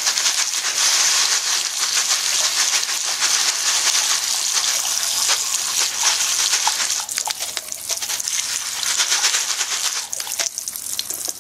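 Cold tap running onto lead airgun pellets in a plastic sieve, rinsing the detergent off them: a steady splash of water with many small ticks as it hits the pellets and the plastic. It eases off a little in the last few seconds.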